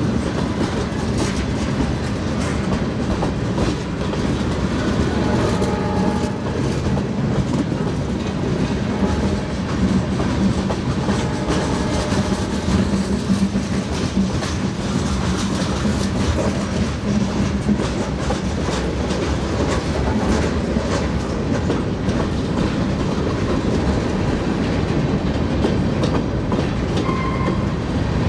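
Freight cars of a train rolling past steadily, their steel wheels rumbling and clicking on the rails.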